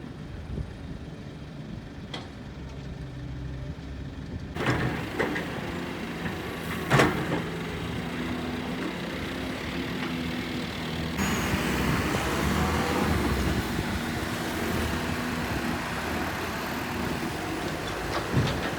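Hydraulic excavator's diesel engine running steadily, with a few sharp clanks and knocks. The loudest knock comes about seven seconds in.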